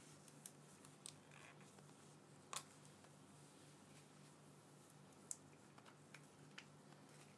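Near silence: faint room tone with a low steady hum and a few faint, scattered clicks, the clearest about two and a half seconds in.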